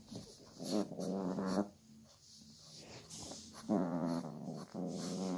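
Puppy growling in play: two drawn-out pitched growls, each about a second long.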